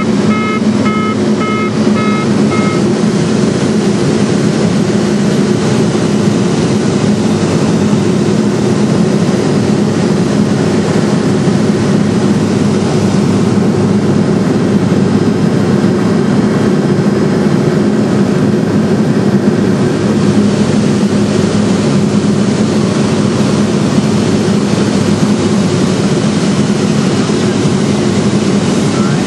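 Steady drone of a Cessna Silver Eagle's Rolls-Royce 250 turboprop and propeller heard from inside the cabin, with a strong low hum. A short series of evenly repeated electronic beeps sounds over it in the first two seconds or so.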